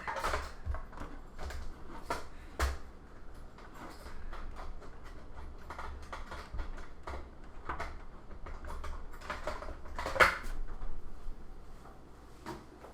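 Scattered clicks, knocks and rattles of cables and plugs being handled and connected to a newly assembled desktop computer, with a sharper knock about ten seconds in.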